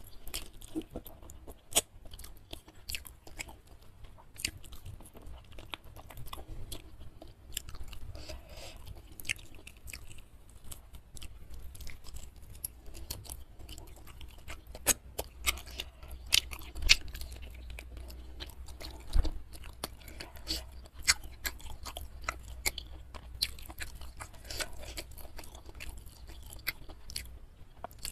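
Close-miked chewing and biting of chicken in sweet-spicy chilli sauce eaten by hand, with many irregular sharp crunches and mouth clicks.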